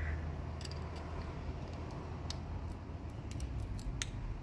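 Small sharp clicks and taps of a screwdriver on a lamp holder and its terminal screws, a few at first and several in quick succession in the second half, over a steady low rumble.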